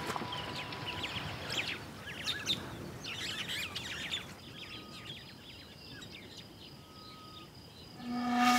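Bush ambience: several birds chirping and calling in quick, sweeping notes for about the first four seconds, then quieter with faint insects and a few thin whistled notes. Music comes in near the end, louder than the birds.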